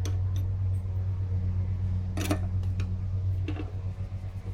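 A steady low hum from a running machine, with a few short metallic clicks and knocks as a hose fitting on a backhoe's hydraulic line is worked loose by hand, about a second apart to begin with and then two more near the middle.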